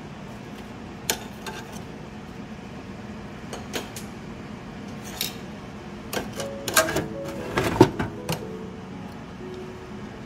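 Metal tongs clicking and clinking against an air fryer basket as chicken wings are turned, a few single clicks and then a busier run of clatter about six to eight seconds in, over a steady low hum.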